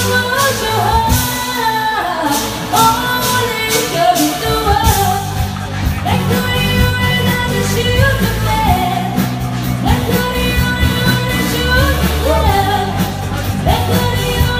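A singer performing a pop song live with band accompaniment and a steady beat.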